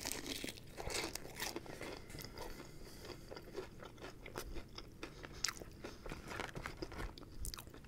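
Close-miked bite into crispy fried chicken, then chewing, with many small crunches and crackles of the breaded coating.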